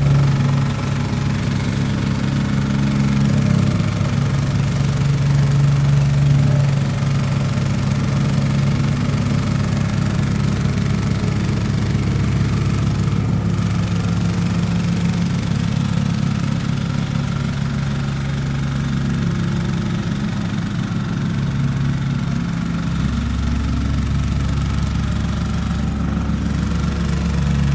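JCB excavator's diesel engine running steadily, its low note shifting slightly a few times.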